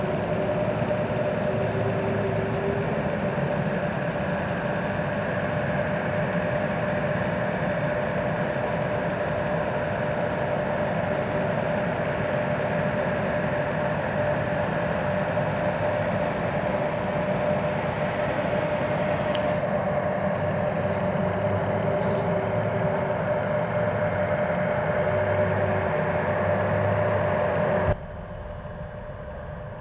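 Jet aircraft engines running steadily at idle: a constant rumble with a steady whine over it. The sound drops sharply for the last two seconds.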